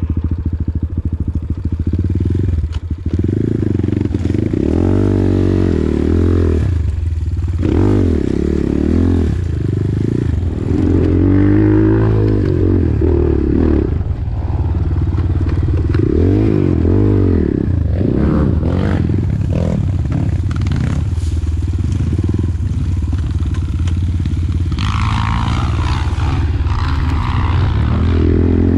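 Enduro dirt bike engine running close up, its revs rising and falling again and again as the throttle is opened and closed while riding.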